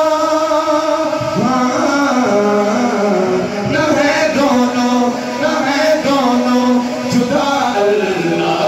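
Man singing an Urdu naat into a microphone, without instruments: one long held note, then a winding line that rises and falls.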